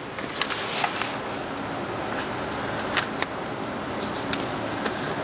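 Self-adhesive flashing membrane being handled and pressed by hand onto housewrap: light rustles and a few short clicks, the loudest two about three seconds in, over a steady background hiss.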